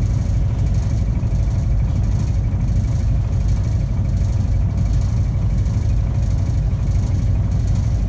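A boat's engine running steadily underway: a continuous low rumble with a faint steady hum above it.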